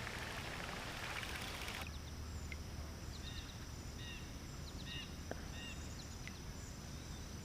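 Faint pondside ambience: a small bird chirping repeatedly in short calls over a steady high-pitched whine and a low hum. For about the first two seconds there is only a soft hiss, then the sound changes abruptly.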